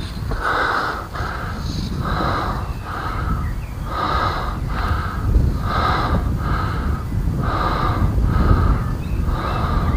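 A person breathing hard, in and out in a steady rhythm of about one full breath every two seconds, winded from climbing on foot.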